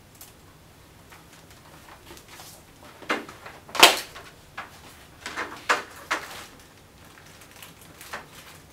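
A string of sharp knocks and clatters, the loudest about four seconds in, with a few fainter ones later.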